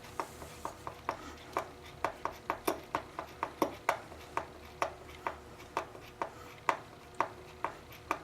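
Phillips screwdriver driving a screw into a pilot hole: a run of irregular, sharp clicks, a few each second.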